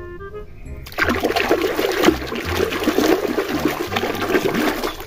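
Water sloshing and splashing as a muddy toy animal figure is swished around by hand in a basin of muddy water, starting about a second in.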